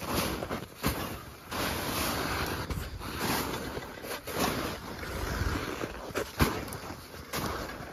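Footsteps crunching and shuffling through deep snow in uneven steps, with a sharper crunch or knock now and then and some wind noise on the microphone.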